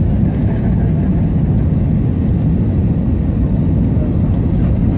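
Steady low rumble of engines and rushing air heard inside the cabin of an Airbus A321 airliner, low over the runway on final approach to landing.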